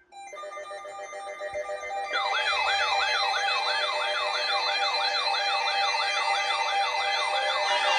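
Electronic siren-style alert sound. Steady held tones build up, then from about two seconds in a fast rising-and-falling yelp repeats about two and a half times a second over them.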